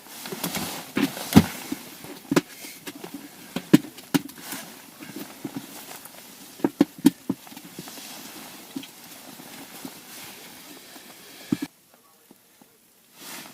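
Irregular sharp taps and knocks, a few of them loud, as a freshly caught dace and the fishing tackle are handled. The sound drops out for a moment near the end.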